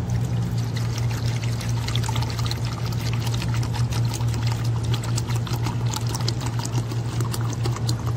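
Water pouring from a plastic bottle into a newly set PVC floor trap, splashing steadily as it fills the trap to test it. A steady low hum runs underneath.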